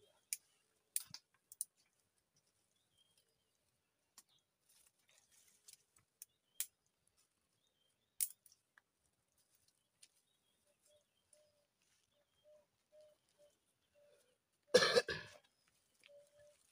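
Sparse small clicks and snaps of dry twigs and leaf litter being handled on the ground, then one loud cough about fifteen seconds in.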